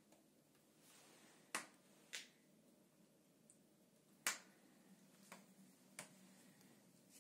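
Burning wood crackling in the open firebox of an Alfa Term 35 wood-fired boiler cookstove: five sharp, separate pops over a few seconds, the loudest about a second and a half in and again past four seconds.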